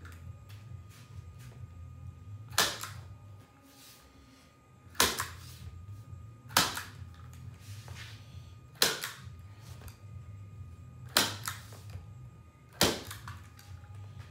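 Hand-held framer's point driver firing, six sharp snaps about two seconds apart as points are driven into the frame to hold the backing board in, over a steady low hum.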